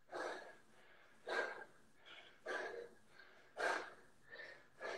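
A man breathing hard from exercise, with a forceful breath about once a second.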